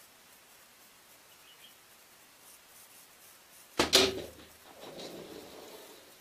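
A PSE compound bow shot: a sharp crack of the string's release about four seconds in, then a second crack a split second later as the arrow strikes the red hartebeest at about 17 yards. A softer clatter follows for about a second as the hit hartebeest bolts.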